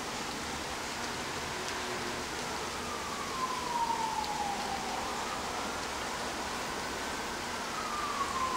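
An emergency-vehicle siren in a slow wail: its pitch falls, rises and falls again. It sounds over a steady hiss of rain.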